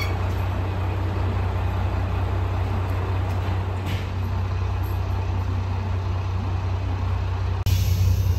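Diesel railcar's engine idling while the train stands, a steady low hum; near the end it becomes suddenly louder and brighter.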